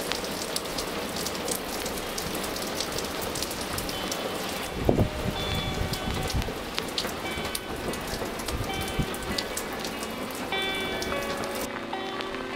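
Steady rain, with water streaming and dripping off an overhang and many separate drops tapping close by. A heavy low thump comes about five seconds in. Soft music notes come in partway through and grow clearer near the end.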